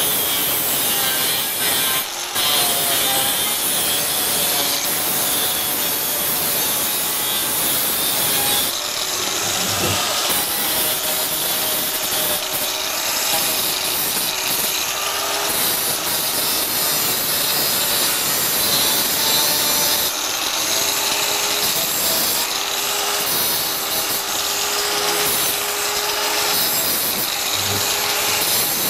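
Handheld electric angle grinder grinding a welded steel scrap-metal sculpture: a steady, gritty grinding that dips briefly about two seconds in.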